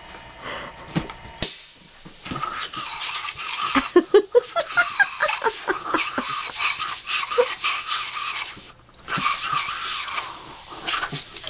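Airbrush blowing a steady hiss of compressed air, which stops for a moment about nine seconds in and then resumes. Short squeaky sounds come through the hiss in the middle.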